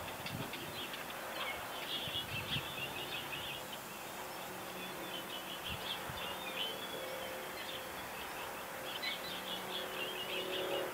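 Small birds chirping and twittering at dawn, many short high calls overlapping over a steady outdoor hiss. Near the end a vehicle's engine hum comes in.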